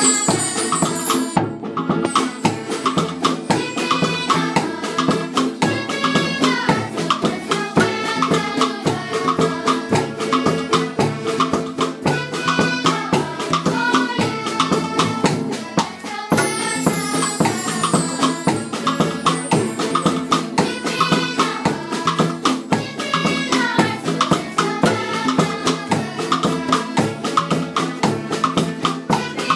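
Music with a fast, even rattle-like percussion rhythm under a melody. There is a brief dip about halfway through, then the music carries on.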